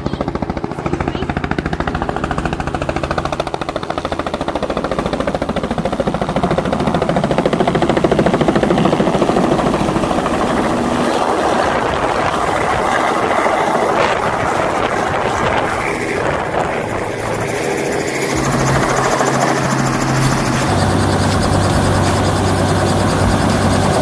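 Robinson helicopter's rotor chopping in a fast, steady beat as it comes in low and sets down. Near the end a steadier low hum joins it as the helicopter runs on the ground with its rotor still turning.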